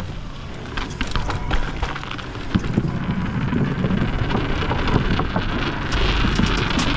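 Mountain bike descending a dirt jump trail, heard from a rider-worn camera: wind buffeting the microphone over tyre rumble, with frequent sharp rattles and knocks from the bike.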